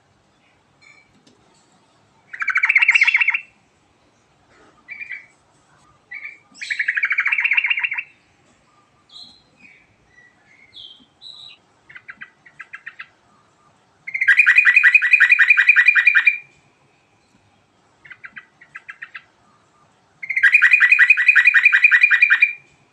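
Yellow-vented bulbul (trucukan) singing: four loud phrases of rapid trilled notes, each one to two and a half seconds long, with short softer chirps between them.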